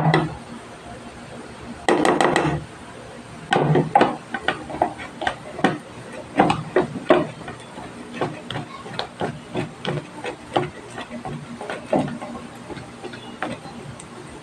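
Boiled potato being pressed and scraped through a stainless steel colander with a plastic spatula: irregular knocking and scraping strokes against the metal mesh, a couple a second. In the first few seconds there are two louder bursts of quick rattling knocks on the colander.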